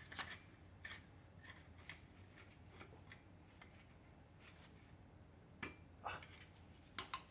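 Faint, irregular metallic clicks and taps of hand tools on engine parts while a Ford 4.6 V8 is being dismantled, with a few louder clacks in the last couple of seconds.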